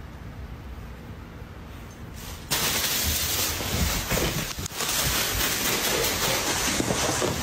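A faint low hum, then, about two and a half seconds in, a loud crackling, rustling noise starts suddenly and carries on.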